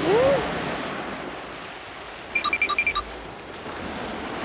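Sea waves washing on the shore, with wind on the microphone, a steady rushing. A brief hummed 'mm' right at the start, and a quick run of short high electronic beeps a little over two seconds in.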